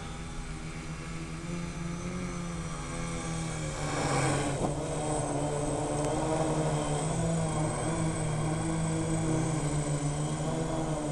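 Feiyu X4 quadcopter's electric motors and propellers buzzing steadily, heard from the camera on board, their pitch wavering as the throttle changes. A brief rushing noise comes about four seconds in, after which the motors run louder.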